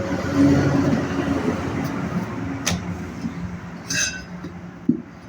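A vehicle engine rumbling and slowly fading away, with a sharp click, then a ringing metallic clink about four seconds in and a knock just after.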